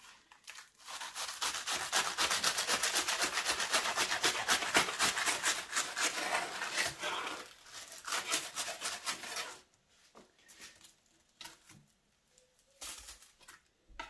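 Knife sawing through the crisp, flaky layers of puff pastry in a mille-feuille, a fast, dense crackling that stops about ten seconds in.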